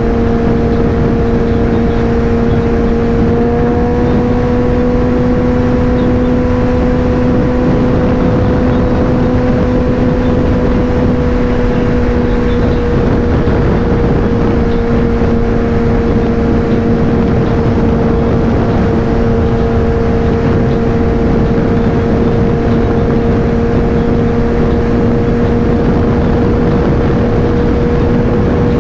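Suzuki Hayabusa's inline-four engine cruising at a steady highway speed, its pitch rising slightly a few seconds in and then easing a little lower. It runs under a heavy, continuous rush of wind.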